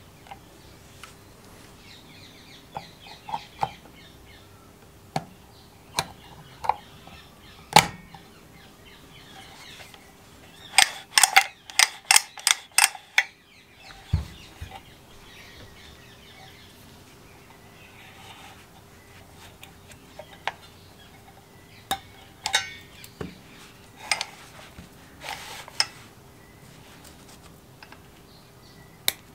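Clicks and knocks of a small-engine recoil starter being handled during reassembly: the plastic pulley and rope in the steel starter housing. About a third of the way in comes a quick run of about eight clicks.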